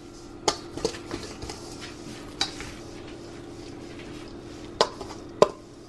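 Wire whisk stirring a crumbly grated sweet-potato and coconut mixture in a stainless steel bowl, with scraping and a few sharp clinks of the whisk against the metal; the two loudest clinks come near the end. A steady low hum runs underneath.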